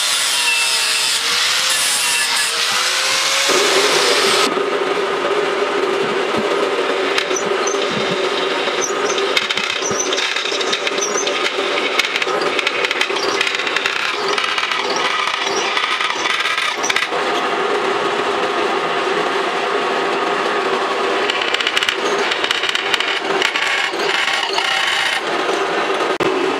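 An angle grinder with a sanding disc runs against a wooden board, its motor pitch wavering under load. About four seconds in it gives way to a bench drill press running, its twist drill cutting into a steel plate with irregular clicks and scraping.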